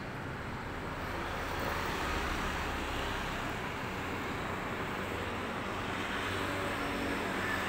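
Steady rumble and hiss of road traffic, swelling slightly about two seconds in.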